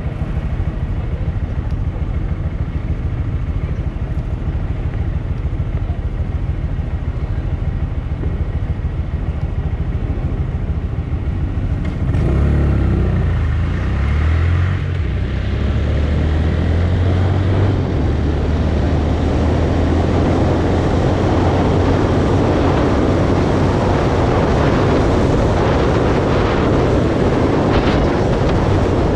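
Honda MSX 125's single-cylinder four-stroke engine idling steadily, then pulling away about twelve seconds in, its note climbing in steps through the gears before it runs on steadily with wind and road noise.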